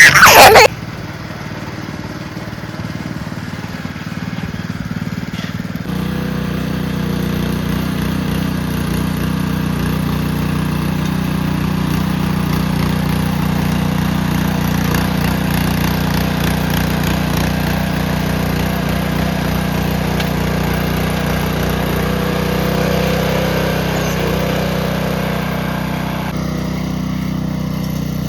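Small gasoline engine of a garden tiller running steadily, growing fuller and louder about six seconds in. A brief loud burst is heard right at the start.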